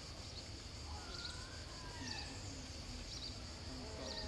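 Insects buzzing in a steady high drone, with short chirps repeating about once a second, over a low outdoor rumble. A few faint sliding calls come through in the middle.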